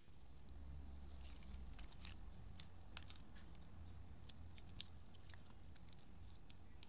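A sheet of paper being folded and creased by hand on a tabletop: faint scattered crinkles and small clicks, with one sharper click just before five seconds in, over a low steady rumble.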